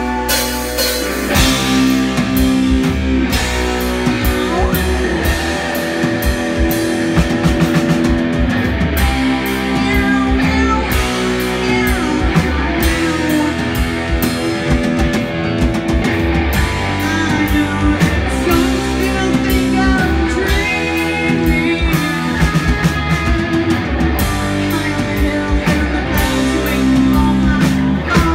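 Live rock band playing loudly: electric guitars, bass and drum kit, with a woman singing into the microphone.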